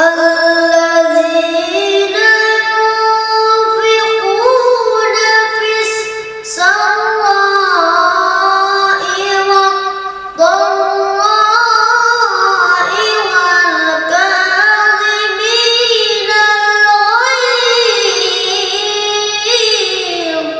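A boy's voice in melodic Qur'an recitation (tilawah) into a microphone: long, ornamented held notes in phrases, with short breaths about six and ten seconds in.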